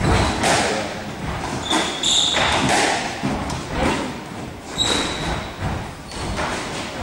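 Squash rally: the ball repeatedly struck by rackets and hitting the court walls, sharp thuds roughly every half to three-quarters of a second, with sneakers squeaking briefly on the wooden court floor a couple of times.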